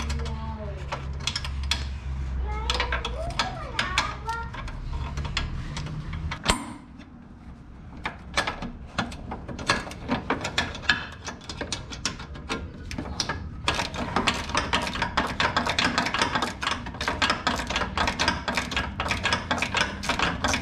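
Hand socket ratchet clicking in quick runs as a nut on a UTV's lower suspension arm is turned, the clicking densest through the second half. A low steady hum runs under the first third and cuts off with a knock.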